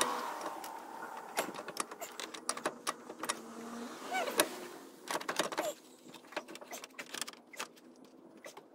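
Irregular metallic clicks and clinks of tools and bolts being worked by hand on an engine while an AC compressor is unbolted, with a faint hum over the first few seconds.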